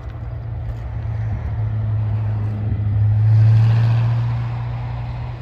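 A vehicle's steady low engine drone, swelling to its loudest about three and a half seconds in and easing off again.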